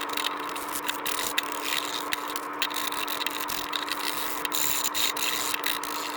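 A small motor hums steadily, with frequent short clicks and scratchy scraping strokes over it.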